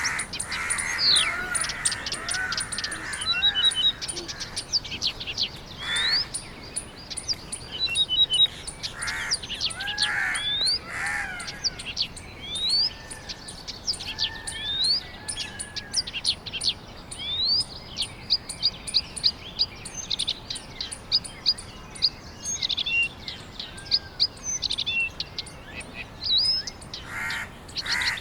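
Mixed wild birdsong: many short chirps and quick rising whistled notes from several birds, with lower arched calls now and then. A fast, even ticking runs high above them.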